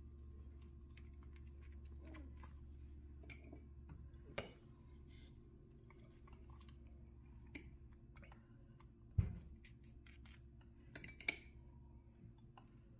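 Faint clinks and taps of a metal spoon against a small glass bowl and the wire cooling rack as marinade is spooned over baked tilapia, with a dull thump about nine seconds in. A low hum runs underneath.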